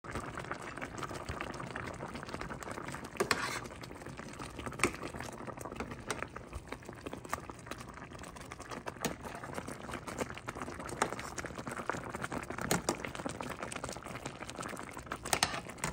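Mushroom gravy boiling hard in a stainless steel frying pan, bubbling and popping steadily, with a few louder clicks along the way.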